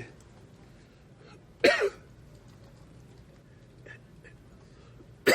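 A man coughs: one short, harsh cough about a second and a half in, and another starting right at the end.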